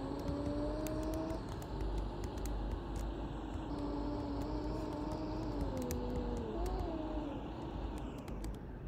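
Mercedes-Benz OC500LE bus under way: a low engine rumble with a droning whine that slowly rises and falls in pitch as the bus changes speed, and scattered light rattles.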